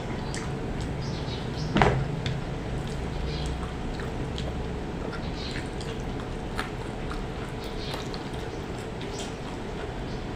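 Eating at close range: chewing and small clicks of food and utensils, with one sharp knock about two seconds in, over a steady faint hum.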